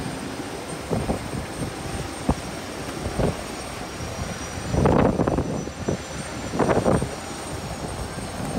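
Steady jet-engine whine and rumble on an airport apron, with a thin high whistle held throughout. Several louder noisy swells rise over it, the loudest about five seconds in and another just under seven seconds in.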